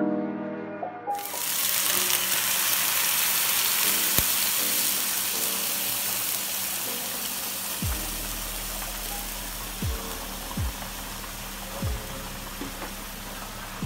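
Cream sauce sizzling as it is poured into a hot non-stick frying pan of diced mushrooms. It starts suddenly about a second in and slowly dies down.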